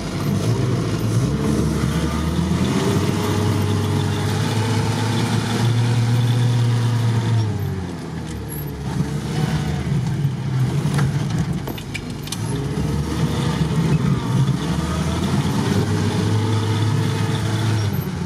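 4x4 engine revving up under load and holding high, then dropping back, three times in a row, as an off-road vehicle works to get through deep snow.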